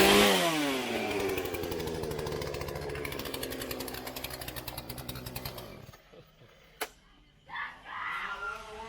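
Chainsaw revved up and let back down right at the start, then running on and fading away until it stops about six seconds in. Two sharp clicks and a brief voice follow near the end.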